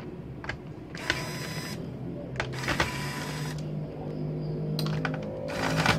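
A cordless electric screwdriver whirring in three short runs, about a second in, about two and a half seconds in and near the end, backing screws out of a laptop's bottom case. A few sharp clicks of the tool against the case come between the runs.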